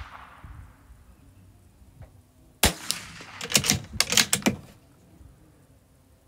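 A single .22 LR shot from a Bergara B14R bolt-action rimfire rifle about two and a half seconds in. It is followed by a quick run of sharp metallic clicks and clacks as the bolt is worked to eject the case and chamber the next SK Rifle Match round.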